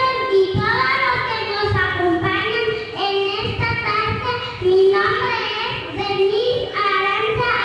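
A young girl's voice in Spanish through a handheld microphone, in a sing-song, chant-like delivery with held and gliding notes.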